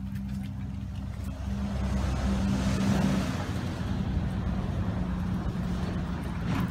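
A motor vehicle's engine running with a steady low hum, swelling to its loudest about three seconds in and then easing off.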